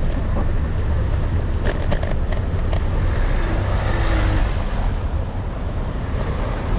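Steady low wind rumble on an action camera's microphone while moving through a city street. A few light clicks and rattles come about two seconds in, and a swell of hiss comes around four seconds in.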